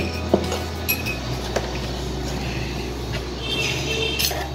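Metal spoon clinking against a stainless-steel mixing bowl a few separate times as chutney is scooped into chopped vegetables.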